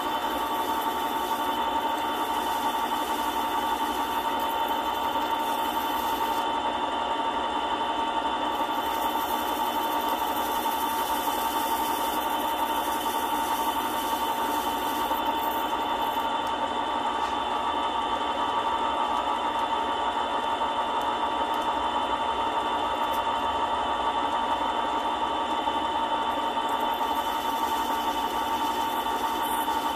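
Small lathe motor running steadily, spinning a ring on a mandrel, with a steady whine while a thin sanding strip is held against the ring.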